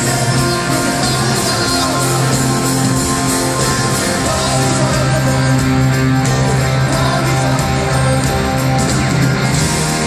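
Live rock band playing: electric guitars, drums and a singing voice, heard from the audience.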